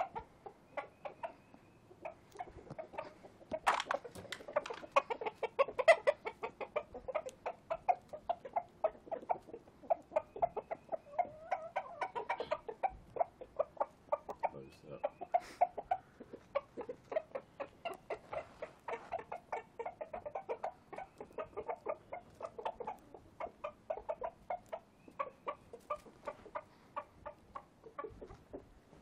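Chickens clucking continuously, short quick calls from several birds, louder for a few seconds near the start.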